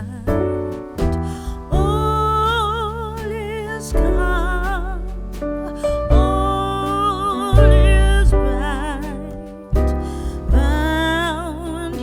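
Background music: long held melody notes that waver in pitch, over a deep bass line.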